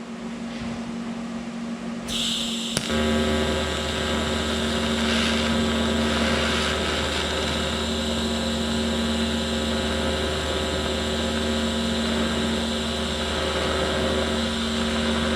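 TIG welding arc from a Vulcan OmniPro 220 struck about three seconds in, then a steady electric buzz with a hiss as a pass is run on sheet steel.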